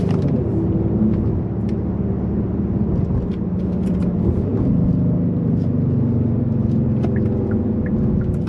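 Interior of a 2021 Kia Stinger GT2 under way: its 3.3-litre twin-turbo V6 running steadily under a continuous low road and tyre rumble, as heard from inside the closed cabin. The engine note dips slightly in pitch just after the start.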